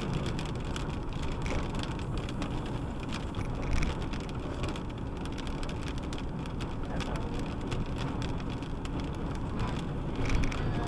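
Car driving in light rain, heard from inside the cabin: a steady low road-and-engine rumble with raindrops ticking on the windshield and roof.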